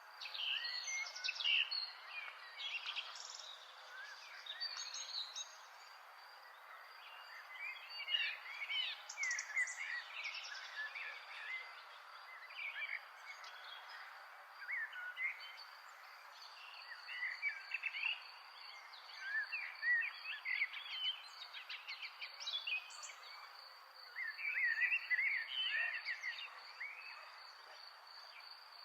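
Several songbirds chirping and singing in bouts of short, high warbling phrases, over a steady, evenly pulsed high insect trill.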